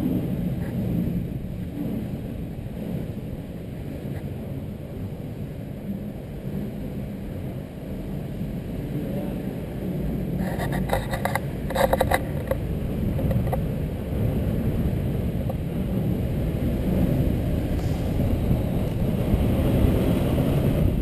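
Inline skate wheels rolling fast on a concrete parking-garage ramp, a steady rumble. About halfway through there is a brief clatter with a short squeak.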